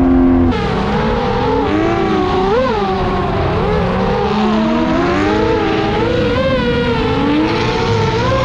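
Drift car's engine revving up and down as it is driven on track, its pitch rising and falling repeatedly. There is an abrupt change in the sound about half a second in.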